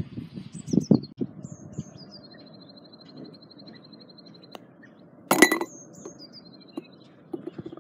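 A putter strikes a golf ball once about five seconds in: a loud, sharp metallic click with a brief ring. A small songbird sings throughout, with high falling chirps and a long, even trill.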